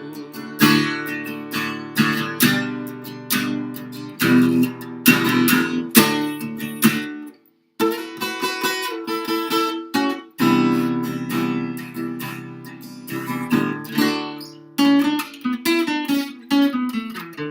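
Acoustic guitar strumming chords, an instrumental passage with no singing, with a brief break about seven and a half seconds in.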